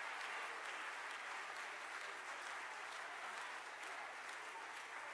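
Congregation applauding: many hands clapping in a dense patter that slowly dies down.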